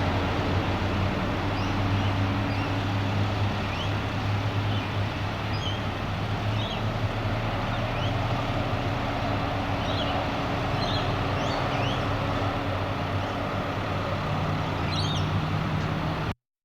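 Steady road traffic drone with small birds chirping now and then over it; the sound cuts off abruptly near the end.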